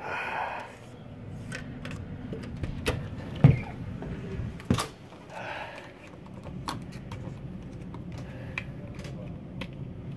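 Cabin door being opened: sharp clicks of the lock and handle and a heavier knock about three and a half seconds in, then lighter scattered clicks, over a steady low hum.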